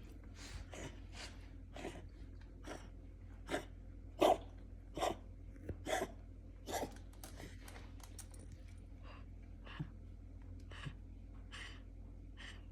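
Cat coughing in a recurring fit: a string of short, raspy hacks, about one or two a second, loudest in a cluster about four to seven seconds in, with fainter hacks before and after.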